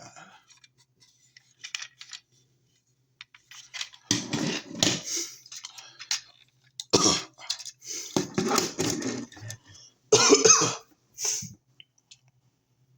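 A person coughing in a string of harsh coughs, five or so fits over several seconds, starting about four seconds in.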